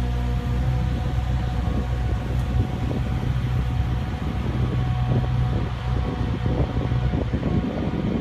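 Fiori Miniload 1200 miniloader's engine running steadily as the machine drives off over rough ground.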